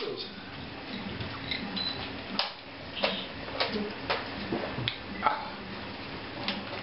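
Scattered light clicks and taps, roughly one or two a second, over a faint steady hum.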